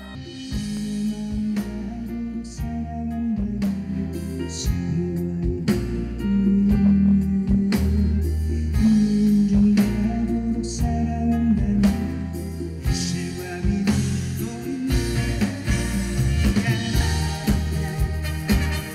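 Live pop band music with drum kit and a steady beat, growing a little louder about six seconds in.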